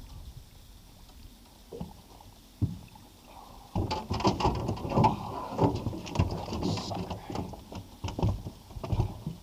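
A low, quiet rumble for the first few seconds, then, about four seconds in, a run of sharp knocks and clattering of gear against the fishing boat as the angler moves about and grabs the landing net.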